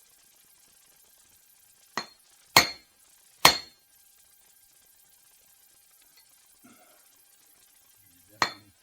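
Hammer blows on a steel bearing race driver, seating a wheel bearing race in the hub: three sharp, ringing metallic strikes about two to three and a half seconds in and another near the end.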